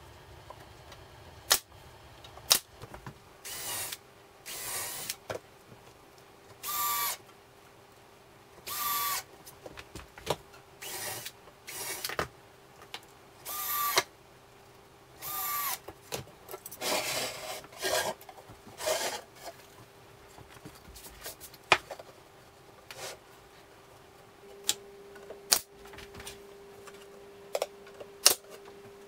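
Cordless drill driving screws into a cabinet box in about a dozen short bursts, several ending with a rising motor whine. Later come a few sharp single shots from a pneumatic nail gun, over a steady hum.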